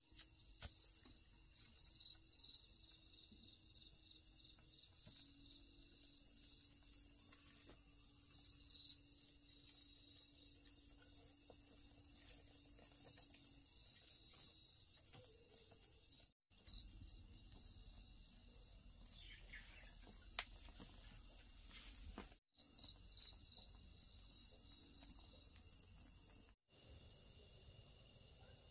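Insects, crickets by the sound of it, chirring faintly: a steady high-pitched drone, with short runs of quick chirps now and then. The sound drops out abruptly for a moment three times.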